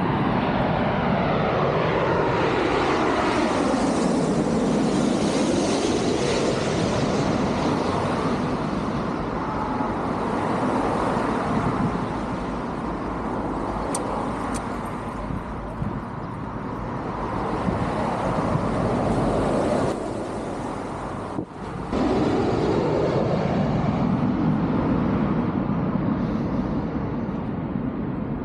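Jet airliner passing low overhead on its landing approach, its engine whine falling steadily in pitch over the first few seconds, over a continuous wash of jet and road-traffic noise. A second pass swells up near the end.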